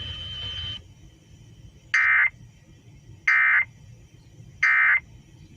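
Emergency Alert System end-of-message signal played over a car radio: three short, identical buzzy data bursts about a second apart, the digital 'NNNN' code that closes an EAS alert. Before them a steady faint high tone over low rumble stops under a second in.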